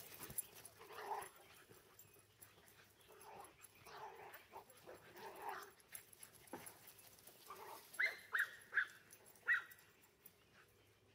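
Small dogs, Chinese cresteds and a Chihuahua, at play, with a few softer dog sounds at first. Then four short, high-pitched yips come in quick succession about eight seconds in.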